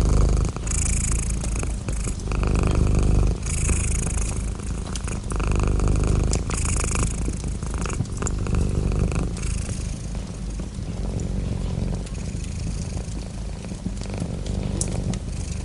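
Domestic cat purring close up, a low rumble that swells and eases with each breath about every three seconds and grows softer in the second half. A few sharp crackles sound near the end.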